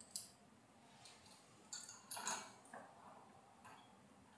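Faint, scattered clicks and ticks of small metal mounting hardware being handled, a sharper click just after the start and a few softer ones around two seconds in.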